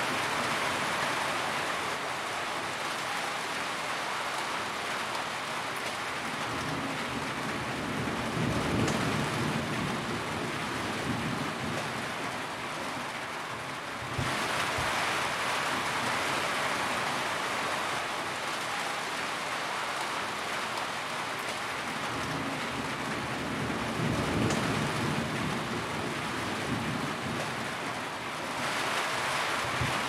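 Steady rain on a corrugated metal roof, a dense even hiss of drops drumming on the metal and dripping off the edge. A low rumble of distant thunder swells and fades twice.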